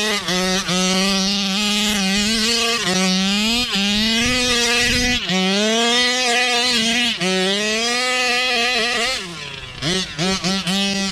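35cc two-stroke gas engine of a large-scale RC buggy, revving hard in repeated throttle pulls, its pitch rising and falling with each run after a few quick blips at first. It drops to a low idle about nine seconds in, then is blipped sharply several times near the end.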